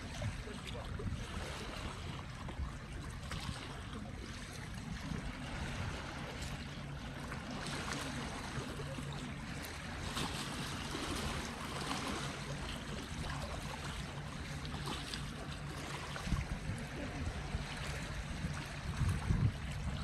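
Small sea waves washing and lapping against shoreline rocks, with wind buffeting the microphone in low gusts that grow stronger near the end.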